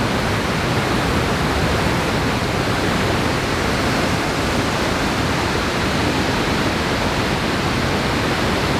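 Waterfalls in full spate after heavy rain: a loud, steady rush of fast-moving water. It starts abruptly at the beginning and holds level throughout.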